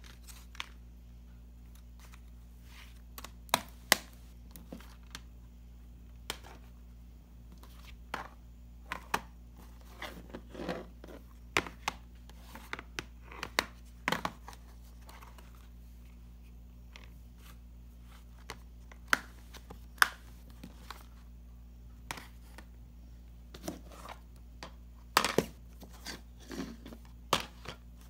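Plastic DVD cases being handled: cases opening and snapping shut, and being picked up and set down on a wooden surface, giving irregular sharp clicks and knocks with a few short rustles. A steady low hum runs underneath.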